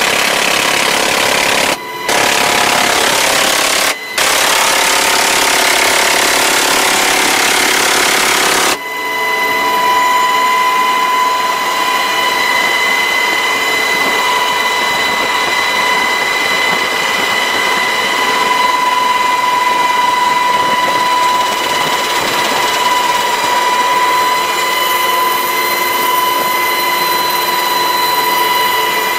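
Helicopter door-mounted 7.62 mm minigun firing long continuous bursts, with two short breaks, stopping abruptly about nine seconds in. After that the helicopter's cabin noise remains: a steady high whine over a constant rush.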